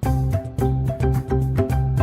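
Upbeat background music with a steady bass beat and plucked or mallet-like notes.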